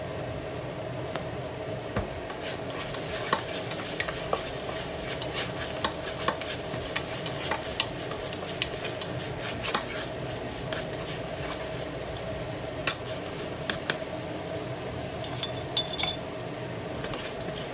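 Minced garlic and dried chili sizzling in oil in a nonstick frying pan, stirred with a slotted spatula that scrapes and taps the pan in quick, irregular strokes. It is the garlic being fried into a garlic sauce.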